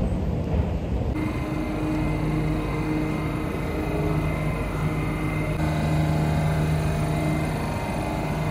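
Metro station noise. About a second in, the sound changes to a steady hum with a faint high whine, from a subway train standing at the platform.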